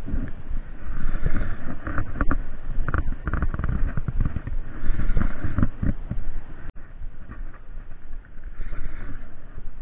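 Wind buffeting the microphone on an open boat at sea, with water washing against the hull and a few sharp clicks. The sound briefly cuts out about two-thirds of the way through.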